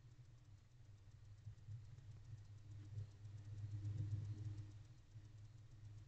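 Faint low rumble in the owl box microphone with a fast, even ticking over it. The rumble swells about three to four seconds in as a barn owl shifts about on the box floor.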